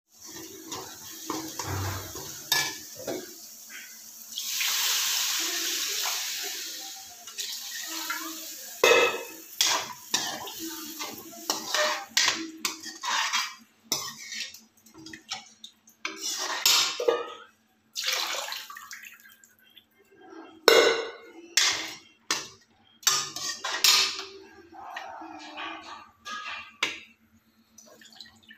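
Metal ladle scraping and knocking against a metal kadhai while stirring frying besan masala, with a few seconds of hissing about five seconds in as water goes into the hot pan.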